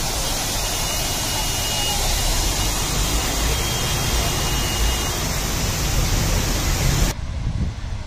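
Water rushing through a river barrage's sluice gates and spillway channels: a steady, loud, even rush that cuts off suddenly near the end.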